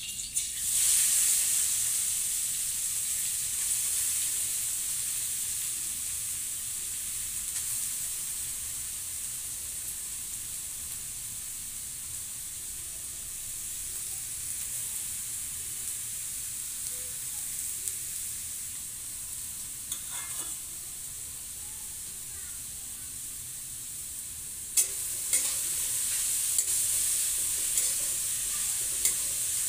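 Halwa ingredients frying in hot fat in a steel kadhai: the sizzle starts suddenly as they are tipped in from a plate, swells for about a second, then settles to a steady hiss. Near the end the sizzle grows louder, with sharp metal clicks and scrapes as the pan is stirred.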